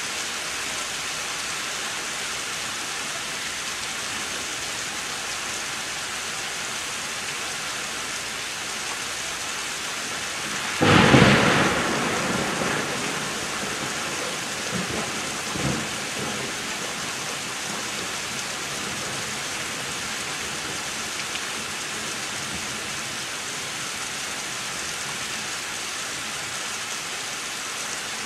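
Steady heavy rain falling throughout a thunderstorm. About eleven seconds in, a sudden close crack of thunder breaks out and rumbles away over a few seconds, with a couple of lesser rolls following.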